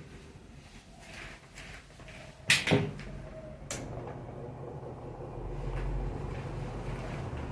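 Loren Sid Turbo Wind 40 cm table fan: two sharp clicks, the loudest about two and a half seconds in and the other about a second later, then the fan's motor and blades running with a low steady hum that grows louder about five seconds in.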